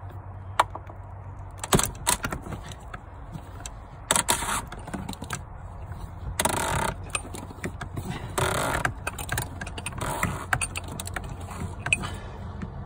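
Socket ratchet on a long extension working the fuel filter housing cap: scattered sharp metal clicks and clanks, with several short runs of ratchet pawl clicking about two seconds apart. The cap is stuck tight.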